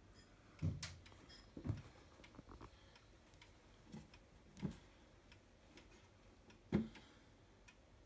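Comitti of London mahogany wall clock ticking steadily. Its faint, regular ticks are broken by a few louder low thumps.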